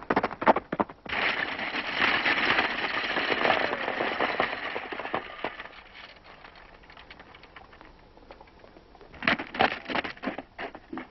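Gunshots in an old western's soundtrack: a quick run of sharp cracks, then a few seconds of loud, dense rushing noise that fades away, and another cluster of cracks near the end.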